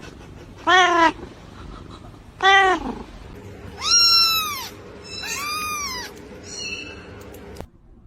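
Domestic cat meowing repeatedly, about five drawn-out meows, each rising then falling in pitch; the later meows are higher-pitched.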